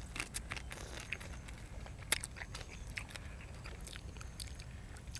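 A person chewing food close to the microphone: scattered short mouth clicks and smacks, with one sharper click about two seconds in.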